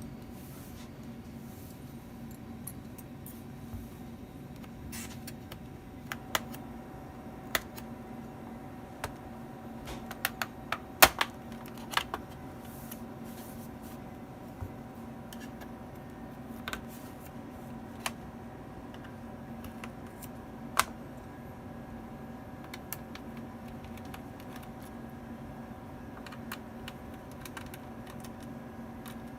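Scattered small clicks and taps of hand tools and parts on a laptop's casing, irregular and sparse, with a cluster of louder clicks near the middle.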